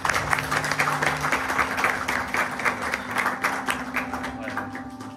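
Audience applauding, the clapping thinning out near the end, over a steady low tone.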